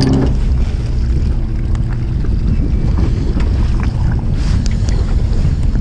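Steady low rumble of a small fishing boat with wind buffeting the microphone, and a few faint clicks.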